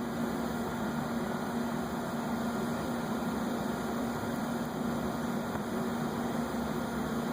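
A steady mechanical hum with a held low tone over an even hiss, unchanging throughout.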